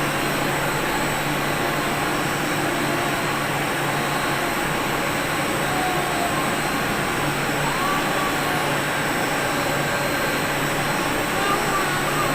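Steady machine drone with a constant high whine over it.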